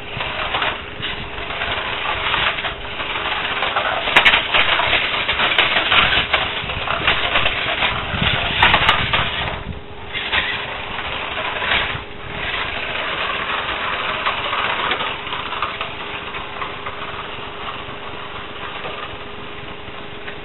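Radio-controlled toy car driving on block paving, its motor and tyres making a rough, noisy sound that grows louder and fades as it moves about, loudest in the middle.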